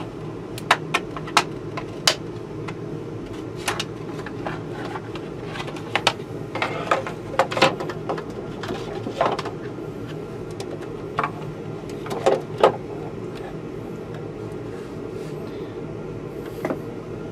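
Scattered sharp clicks and knocks from a switch box being handled and fitted together, over a steady low hum.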